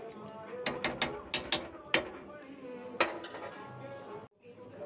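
Metal slotted spoon clinking and scraping against an iron kadhai while stirring rice cooking in milk, with about half a dozen sharp knocks in the first three seconds.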